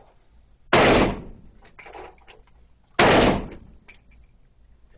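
Two gunshots about two and a quarter seconds apart, each a sharp crack that dies away over about half a second.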